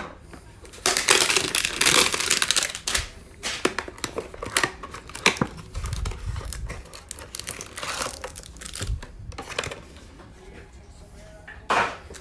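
A 2020 Panini Mosaic football hanger box being opened by hand: cardboard tearing and the plastic wrapping crinkling in irregular spells, loudest in the first few seconds, with small clicks as the pack is handled.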